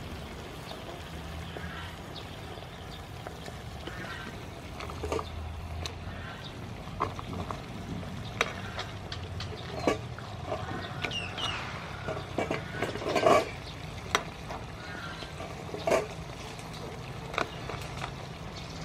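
Lobster in sauce simmering in a frying pan over a steady low rumble, while hard lobster shell pieces are set into the pan, clicking and knocking against the pan and each other. The loudest knock comes about two-thirds of the way through.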